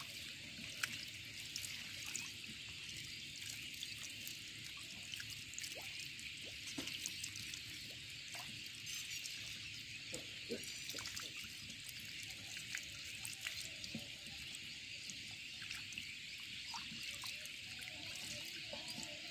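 Shallow muddy water trickling and running steadily over a plastic sheet, with scattered small drips and ticks.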